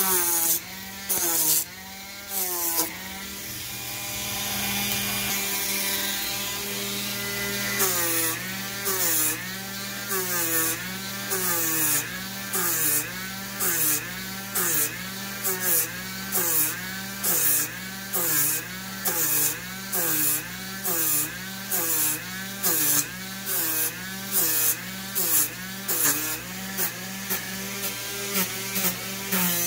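Dremel rotary tool on a flex shaft with a 120-grit sanding disc, running at low speed and sanding foam board. The motor hums steadily, its pitch swinging with each pass, and a gritty rasp comes on every stroke. After a few seconds of steadier running it settles, about eight seconds in, into an even rhythm of about three strokes every two seconds.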